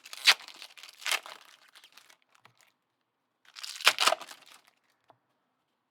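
Foil trading-card pack wrapper being torn open and crinkled by hand: a few sharp crinkles and tears, the loudest cluster about four seconds in.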